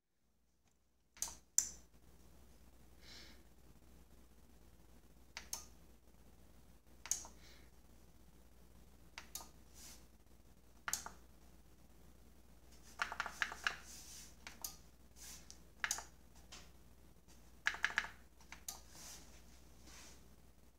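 Yamaha RX-V477 AV receiver clicking again and again as it is switched on and shuts itself off a moment later, the fault of a receiver that will not stay on. Sharp clicks, many in pairs a split second apart, with a few quick rattling clusters, over a faint steady hum.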